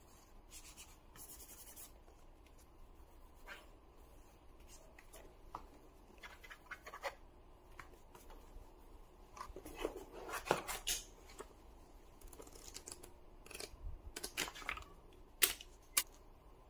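Unboxing handling noise from a GPD Duo laptop and its box: scattered scrapes, rubs and light taps as the device is lifted and turned over. The sounds are busiest about ten seconds in, and two sharp clicks come near the end as a charging cable is taken from the box tray.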